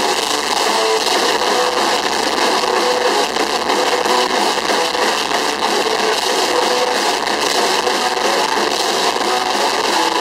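Metalcore band playing loud: heavily distorted electric guitars over dense, driving drums, a continuous wall of noisy sound.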